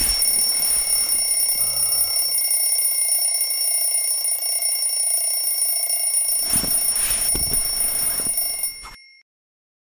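Alarm clock ringing, a loud, steady, high metallic bell-like ring that fades briefly and stops abruptly about nine seconds in. A few soft knocks or rustles come about seven seconds in.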